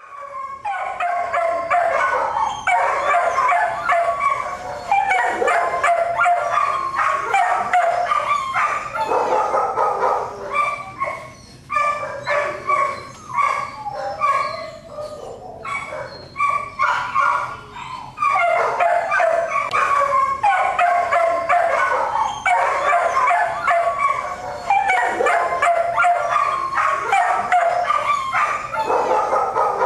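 Many dogs barking at once in a kennel block, a constant overlapping din that eases somewhat for a few seconds near the middle. This is the kind of noise said to regularly exceed 100 decibels in kennels.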